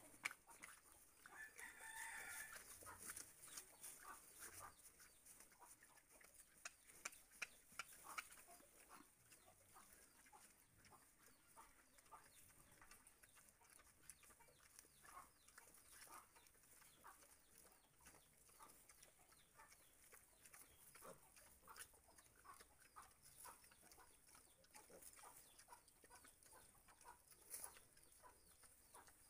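Faint scattered crunching and rustling of black pigs chewing and rooting through sugarcane leaves and stalks. A chicken calls briefly about a second in.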